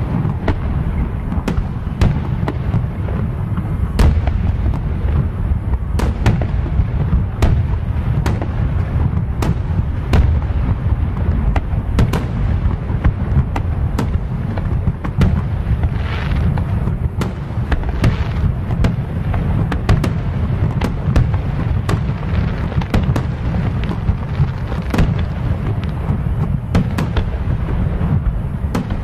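Aerial firework shells bursting in a continuous barrage: a dense low rumble of booms, cut through by frequent sharp bangs and crackles.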